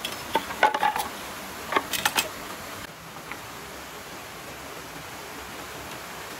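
A quick run of sharp clacks and knocks of bamboo poles being handled, loudest around two seconds in. After about three seconds there is only the steady rush of a stream.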